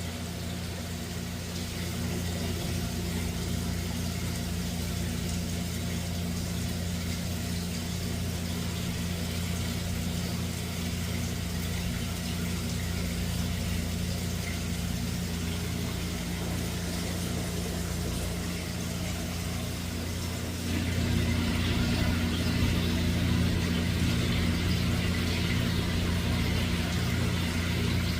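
A motor running steadily with a low hum; a little past two-thirds of the way in it gets louder and a hiss joins it.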